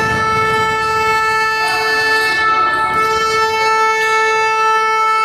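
A basketball arena's electronic game horn sounding as one long unbroken buzz at a single steady pitch, held far longer than a normal period-end blast. Faint crowd and court noise sit beneath it.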